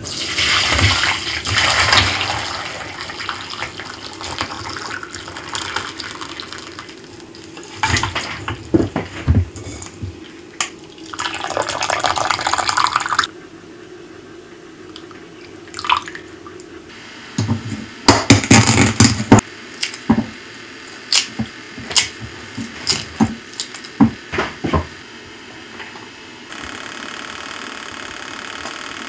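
Ramen soup stock being poured through a stainless-steel mesh strainer into a glass bowl, a steady splashing pour, followed by scattered clinks and knocks of kitchen utensils. Near the end, a steady even hum as the toaster oven runs.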